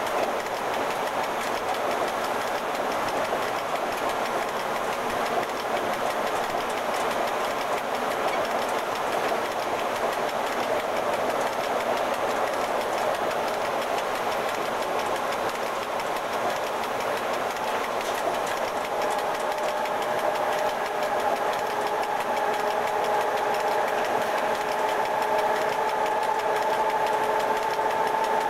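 Cab noise of an FS E.656 electric locomotive running at speed along the line: a steady rumble and rattle from the cab and track. About two-thirds of the way through, a steady whine of several tones joins in.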